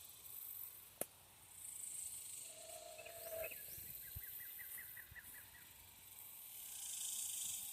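An unseen bird calling faintly: a short, steady low note, then a quick run of about seven high chirps near the middle, over a steady high hiss of outdoor ambience. A single sharp click sounds about a second in.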